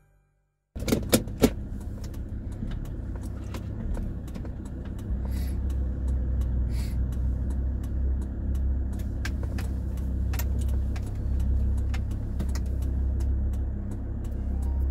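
Car cabin noise while driving: a steady low road-and-engine rumble that grows heavier about five seconds in, with scattered light clicks and ticks and a few sharper clicks about a second in.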